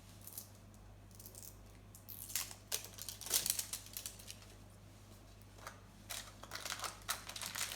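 Plastic packaging crinkling and rustling in short, irregular bursts as a small toy packet is handled and opened, starting about two seconds in and picking up again near the end.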